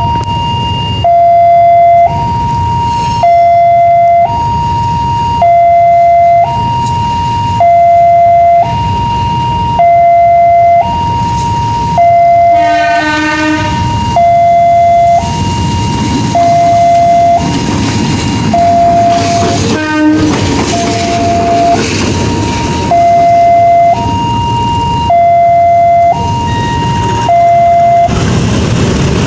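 Railway level-crossing warning alarm sounding a loud two-tone signal that alternates between a higher and a lower tone about once a second, while a KAI CC203 diesel-electric locomotive runs past with a low engine rumble. The locomotive's horn blows about twelve seconds in and gives a short toot around twenty seconds in.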